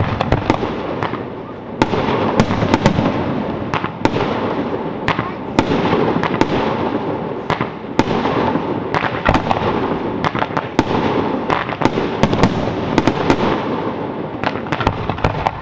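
Fireworks display: many sharp bangs of bursting shells, several a second, over a dense, unbroken crackle.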